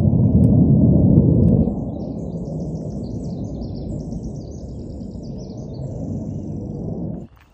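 Jet aircraft passing overhead: a loud, steady low roar, strongest in the first two seconds, that cuts off abruptly near the end. A small songbird twitters in quick high phrases over it from about two seconds in.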